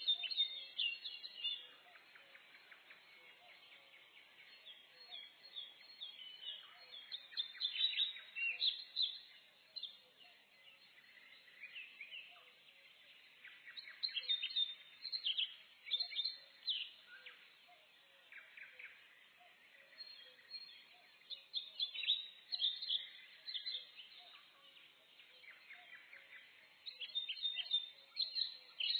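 Several songbirds singing and chirping in a forest, bursts of high chirps and short trills every few seconds over a faint steady background.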